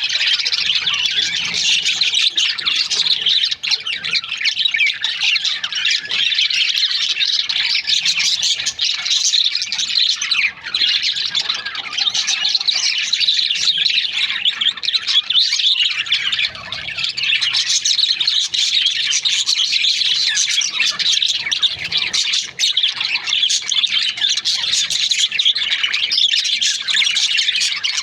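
A flock of budgerigars chirping and chattering non-stop, many high calls overlapping into a dense warble.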